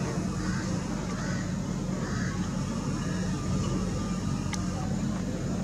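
Steady outdoor background din of distant traffic, with a few faint short calls and a single sharp click about four and a half seconds in.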